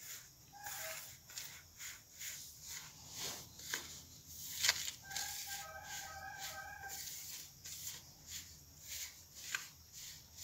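Hands rubbing and squeezing a dry flour-and-oil mixture in a steel plate, a soft scratchy rustle about three strokes a second. A chicken calls briefly just under a second in, and a rooster crows for about two seconds around the middle.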